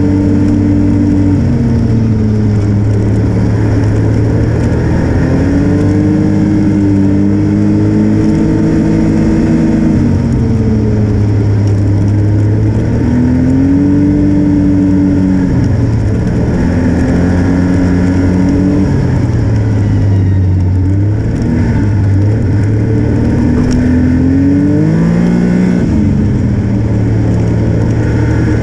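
Snowmobile engine running along a trail, its pitch rising and falling repeatedly as the throttle is opened and eased off.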